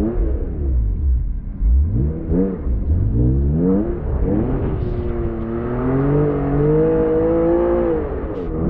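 Honda NSX's V6 engine revving hard, spinning the car in donuts on snow: several quick rises in revs, then held high for about three seconds with a slight wavering before the revs drop near the end.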